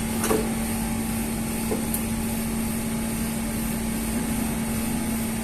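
A steady electrical hum holding one low pitch, over a faint high hiss, with a few light clicks near the start and about two seconds in.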